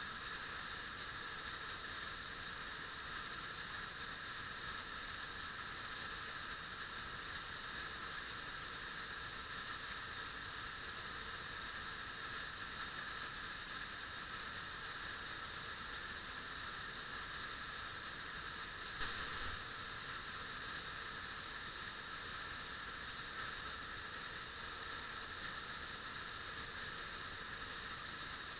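Steady hiss of an underground waterfall's falling water and spray, with a single brief knock about two-thirds of the way through.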